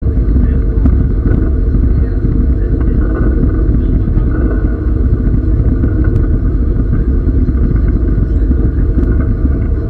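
A historic train running along the line, heard from on board: a steady low rumble with a few faint clicks.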